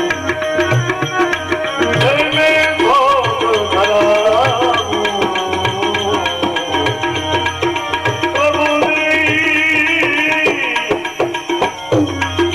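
Devotional bhajan music: a steady hand-drum beat under a melody of held notes and wavering, sung-like lines.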